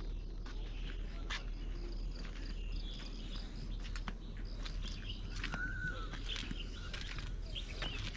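Footsteps climbing stone steps, with birds chirping around them.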